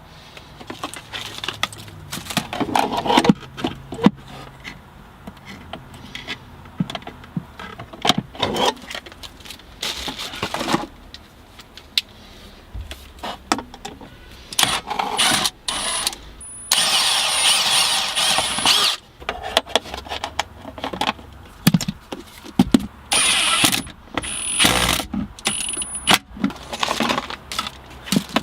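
Clicks, knocks and rattles of hardware and parts being handled, with a small electric power tool running with a high whine for about four seconds past the middle, then in a few short bursts near the end.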